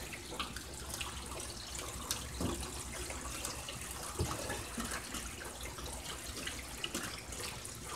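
Rainwater running out of a house downspout onto wet pavement, a steady trickle with scattered light drips and splashes.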